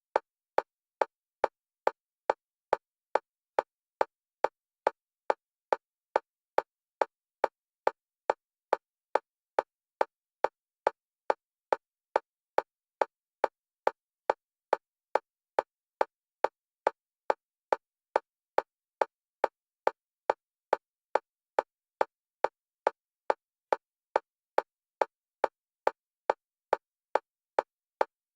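Synthesized metronome clicks at a single pitch, evenly spaced at just under two a second, alternating between the left and right channels for EMDR bilateral stimulation.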